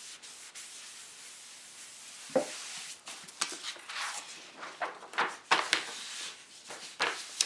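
Cloth rag wiping honing oil off a plastic honing film on a granite surface plate, a steady hissing rub. From about two seconds in, a string of sharp crinkles and clicks as the film and a paper sheet are handled.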